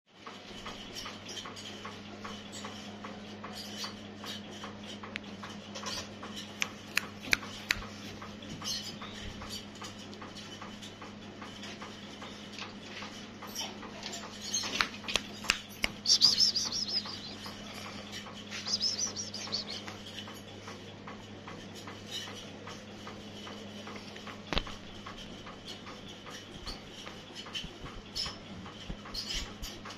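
Cats moving about on bare plywood, with scattered light taps and clicks of paws and claws on the wood, and a couple of short, high-pitched cat calls about halfway through, over a steady low electrical hum.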